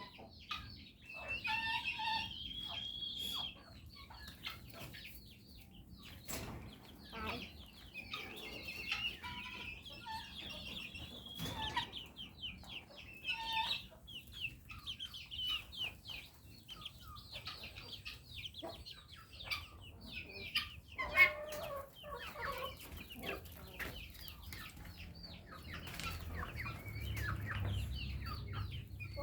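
Chickens calling continuously, many short high-pitched peeps and clucks overlapping, with scattered clicks and one sharp knock about two-thirds of the way through.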